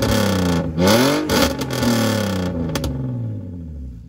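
BMW E46 330Ci's 3.0-litre straight-six revving through an exhaust with its rear silencer sawn off, effectively a straight pipe. The revs are falling at first, blip up once about a second in, then sink slowly back toward idle.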